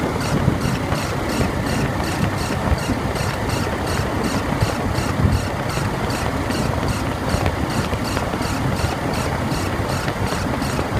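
Toyota 2TR-FE 2.7-litre four-cylinder engine idling, with the accessory-belt idler pulley squeaking in a quick, even rhythm several times a second: the sign of a worn idler pulley bearing.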